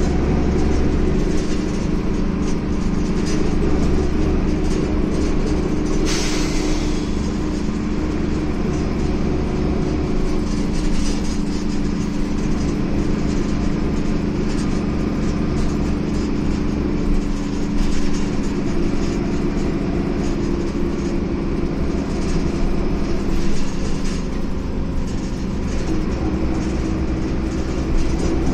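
Inside a moving Ikarus E94.53 intercity bus: the diesel engine drones steadily under constant road rumble, with a short hiss about six seconds in.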